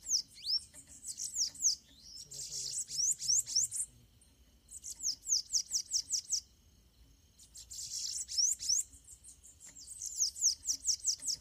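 Bananaquits singing in a territorial contest between a caged bird and a free one: phrases of rapid, high, thin downslurred notes, each phrase lasting a second or two and repeating every couple of seconds.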